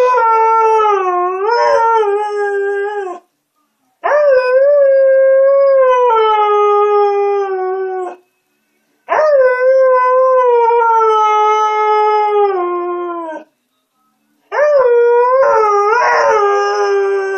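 A husky-type dog howling: four long howls with short breaks between them, each wavering in pitch and sliding down at the end.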